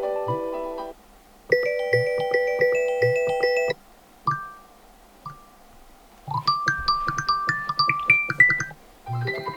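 Google Pixel 7a default ringtones played one after another: short electronic melodies in a bell-like keyboard and mallet sound over a soft beat. Each breaks off abruptly after a second or two, with brief gaps before the next tone begins.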